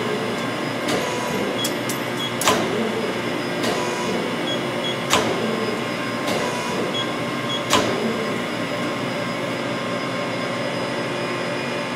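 Tool turret of a 2005 Mori Seiki NL-2500 CNC lathe indexing from station to station, with a sharp clunk about every two and a half seconds as it locks into each new position and lighter clicks in between. A steady machine hum runs underneath.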